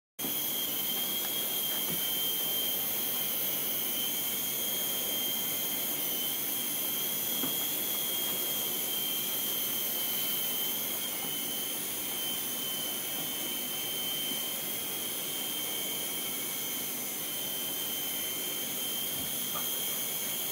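Small electric remote-control toy helicopter flying, its motor and rotors giving a steady high-pitched whine that wavers slightly in pitch.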